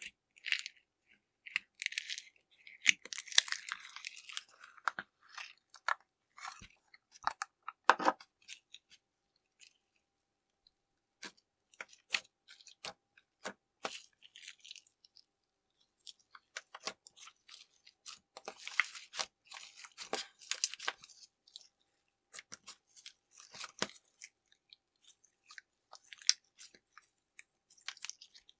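Hands squishing, poking and stretching slime, giving irregular wet clicks, pops and crackles in clusters, with a pause of a couple of seconds about a third of the way in.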